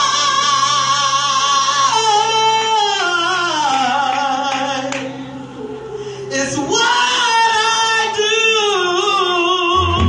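A woman singing a gospel song solo into a handheld microphone: long held notes with a wide vibrato, one phrase sliding down in pitch, a short break about halfway, then she comes back in on a rising note.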